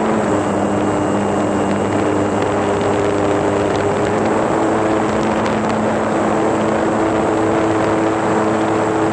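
RC model plane's motor and propeller running steadily in flight, recorded by a phone mounted on the airframe, with wind rushing over the microphone.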